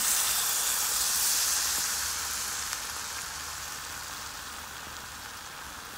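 Spoonful of ground-rice batter deep-frying in hot oil: a loud sizzle as it goes in, settling over a few seconds into a gradually quieter, steady sizzle.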